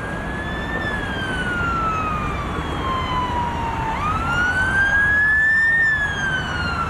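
Emergency vehicle siren wailing, its pitch rising and then slowly falling, with the cycle restarting sharply about four seconds in, over a steady rumble of highway traffic.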